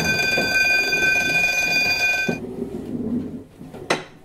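Electric school bell ringing with a steady high-pitched ring, signalling the end of class, then cutting off abruptly about two seconds in. Students' chairs and bags shuffle beneath it, with a sharp knock near the end.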